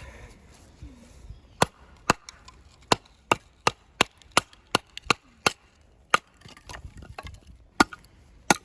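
Firewood giving a run of sharp wooden cracks, about three a second for several seconds, then a few scattered ones near the end.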